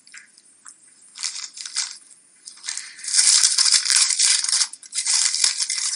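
Foil wrapper of a chocolate bar crinkling as it is peeled open by hand, in short spells of rustling that grow thicker and louder about halfway through.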